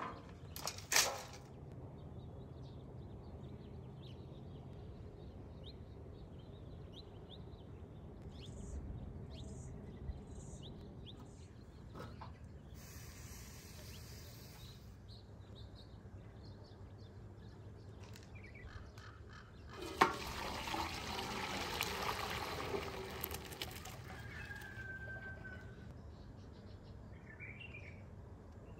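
Quiet outdoor ambience with birds chirping now and then. About two-thirds of the way through, a sharp clack is followed by a few seconds of water pouring and splashing.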